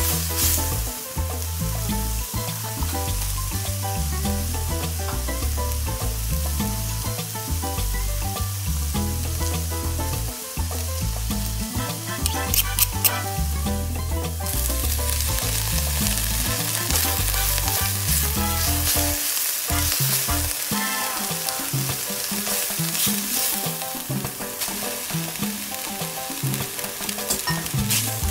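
Sausage, garlic and diced vegetables sizzling steadily in hot oil in an enamelled cast-iron pan as they are stirred with a silicone spatula, with a short run of clicks about halfway through. Background music plays underneath.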